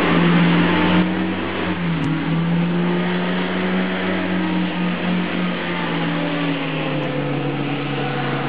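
Light hovercraft running over floodwater: a steady engine note over a broad rushing of air from the fan. The engine note drops a little about halfway through.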